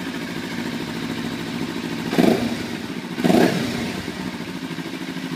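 Kawasaki Ninja 300's parallel-twin engine idling through an aftermarket LeoVince slip-on silencer, with two short throttle blips about two and three seconds in.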